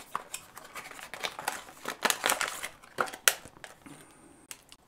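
Cardboard packaging being opened and a clear plastic bag crinkling in the hands: a run of irregular small clicks and crackles that thins out near the end.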